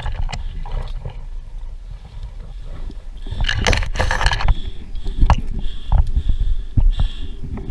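Rustling, scraping and knocking of movement close to a body-worn microphone, over a low rumble of wind on the microphone, with a louder rush of rustling around the middle.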